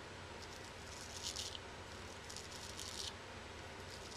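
German-made straight razor, freshly honed, scraping through lathered neck stubble: a scratchy crackle with each pass, three short strokes about a second apart.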